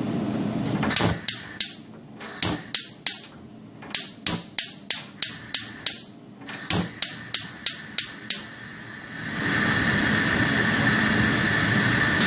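Gas hob igniter clicking about four times a second in several bursts as the burner is relit. About nine seconds in, the burner catches and the gas flame hisses steadily.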